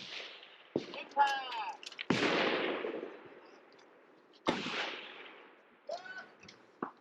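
Two loud rifle shots, about two seconds in and again about four and a half seconds in, each followed by a long echoing tail.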